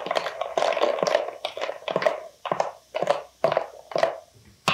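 Metal spoon stirring a bowl of lemon juice, bicarb soda and vinegar cleaning solution, scraping and clinking against the glass bowl and the tripod parts soaking in it, about two strokes a second.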